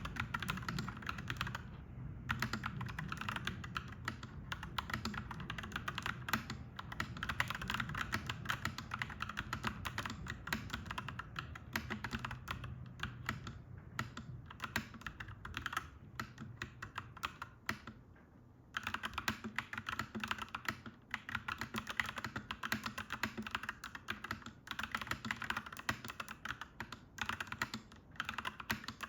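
Fast, continuous typing on a clacky mechanical keyboard, a dense run of key clicks with a brief pause a little past halfway. A steady low hum sits underneath.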